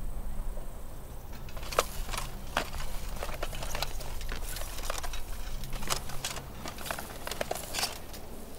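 Irregular sharp clicks and crackles, a few to several a second, over a steady low hum.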